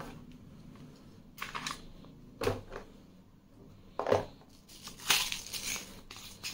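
Handling sounds from an Umarex Beretta M9A3 CO2 air pistol: a few sharp plastic-and-metal clicks and knocks as its magazine is released and pulled from the grip. Then a rustling clatter near the end as a plastic bottle of steel BBs is picked up and handled.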